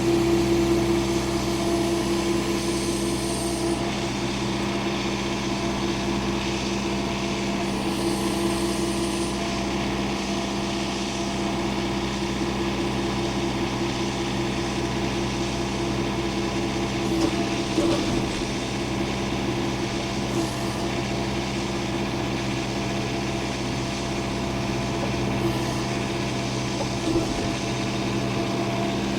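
An engine running steadily at an even speed, as the machine moving logs works in the yard, with a few light knocks in the second half.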